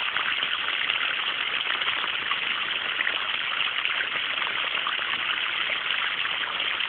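Running water flowing steadily, a constant rush with fine splashing, as water is let into a taro patch to water it.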